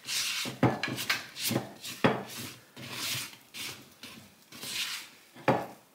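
Spatula scraping and stirring a sticky, wet no-knead dough around a wooden bowl, in repeated rubbing strokes about two a second.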